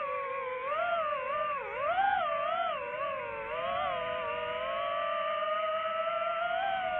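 DJI FPV drone's motors and propellers whining as it flies, the pitch wavering up and down with throttle changes for the first few seconds, then holding steadier and rising slightly near the end.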